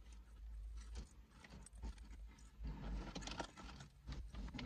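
A person eating: faint chewing and mouth clicks, with scattered small crackles from handling fried food.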